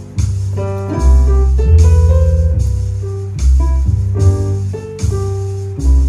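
Jazz piano played on a keyboard: sustained chords over a strong low bass line, with new chords struck about every second.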